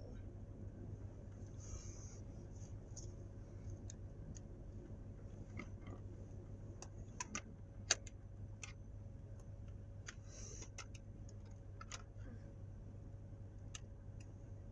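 Small plastic snow-globe toy being handled and turned in the fingers: scattered light clicks and taps of plastic, with one sharper click about eight seconds in and a couple of brief rustles, over a low steady hum.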